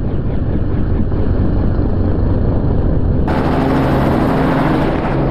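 Helicopter's rotor and engine running steadily, heard from the open cabin door. A little past halfway the sound abruptly turns brighter and fuller.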